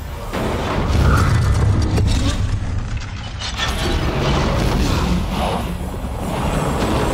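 Film sound design for a storm-cloud monster engulfing the scene: a deep, heavy rumble under crackling and creaking noises, with a film score faint beneath.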